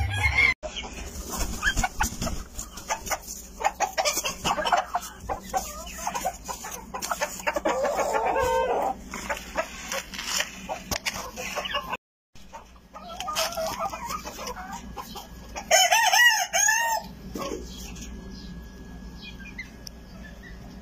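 Cochin bantam chickens clucking, with a short rooster crow of several rising-and-falling notes about three-quarters of the way through. Scattered clicks and knocks run through the first half.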